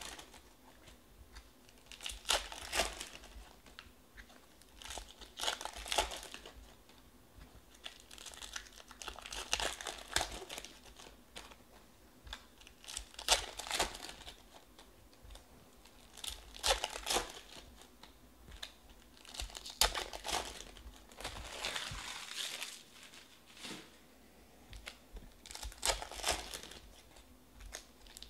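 Panini Prizm Draft football card pack wrappers crinkling and tearing as the packs are handled and opened. The wrapper noise comes in short bursts every few seconds, with quieter gaps between.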